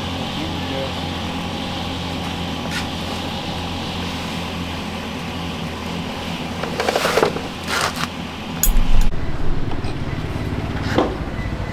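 Small motorcycle engine running steadily, with a few short metallic clatters and scrapes of work on the bike about seven to eight seconds in; just before nine seconds there is a thump and the engine note changes.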